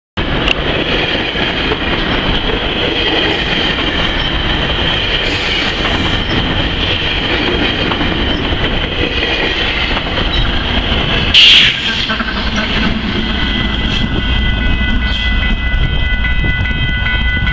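GO Transit train led by an F59PH diesel locomotive passing at close range, its engine and wheels on the rails making a steady loud rumble as the bilevel coaches roll by. A brief loud noise comes about eleven seconds in, and thin high steady tones join near the end.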